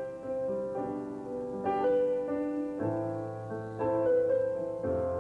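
Instrumental passage of an acoustic rock song with no vocals: sustained keyboard chords, a new chord struck about once a second under a held melody note.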